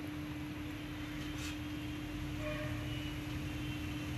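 Hot oil sizzling around mustard and cumin seeds in a non-stick pan, a steady hiss with a single pop about a second and a half in, over a constant low hum.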